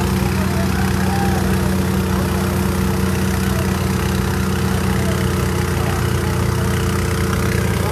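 Vehicle engine idling, a steady low hum that holds even throughout.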